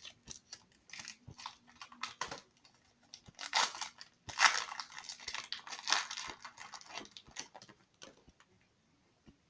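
Packaging being crinkled and torn open by hand: a run of irregular crackles and rustles that thins out and stops about a second before the end.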